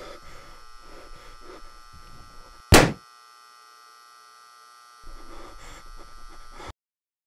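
A single sharp, loud thud about three seconds in, over faint room noise; the sound cuts off completely near the end.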